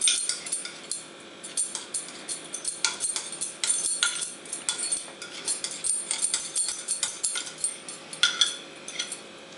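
A spoon scraping and clinking against a small bowl as thick cumin paste is scraped out into a cooking pot, in a run of short, irregular clinks and scrapes.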